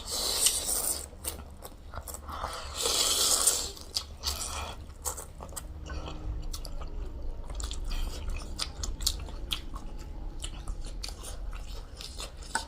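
Close-miked eating: chewing and crunching with many short crisp clicks. Two longer hissy noises come in the first few seconds.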